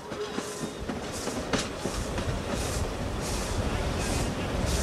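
Queensland Railways A10 class No. 6 steam locomotive under way, heard from its footplate: exhaust chuffs at an even beat of about one and a half a second over the rumble of wheels on rail, growing louder as it goes.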